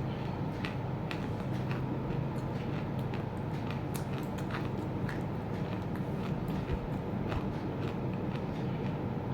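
Chunks of roasted clay being bitten and chewed: a run of short, crisp crunches and cracks, a few each second, over a steady low background hum.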